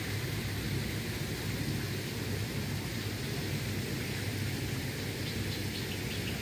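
Steady, even rushing outdoor noise, heaviest in the low end, with a few faint high chirps near the end.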